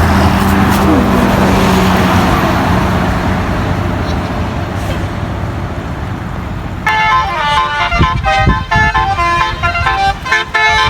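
A passing tour bus's diesel engine runs, then fades away. About seven seconds in, a telolet horn, a multi-tone bus horn, starts suddenly and plays a quick stepping melody.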